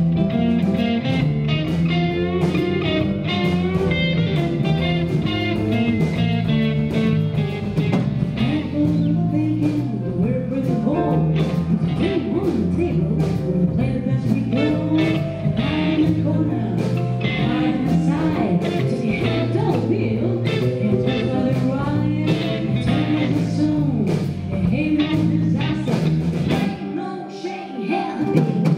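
Live blues band playing: electric guitars, bass, keyboards and drums. The bass drops out briefly near the end.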